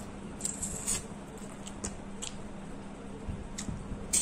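Close-miked wet eating sounds: lip smacks and chewing clicks as a mouthful of fish curry and rice is eaten by hand, with a louder wet smack near the end. A faint steady hum runs underneath.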